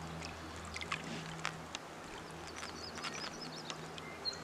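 Small drips and splashes of water at the side of a boat as a pike is released, with a bird chirping a quick run of short high notes about two and a half seconds in and again near the end.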